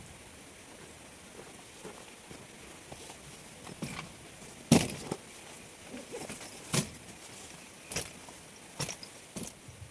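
A handful of separate sharp knocks and clicks, the loudest about halfway through, over a faint steady hiss.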